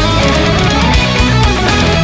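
Loud heavy-metal music driven by electric guitar, playing without a break.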